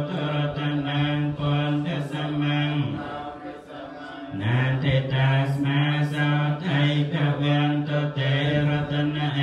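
Buddhist monks chanting in Pali on a low, steady monotone, breaking off briefly about three seconds in and then carrying on.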